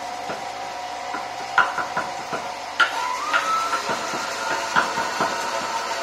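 Countertop blender motor running steadily as oil is poured in to emulsify egg yolks and mustard into a sauce base; its pitch rises and then holds about halfway through, with a few sharp knocks on top.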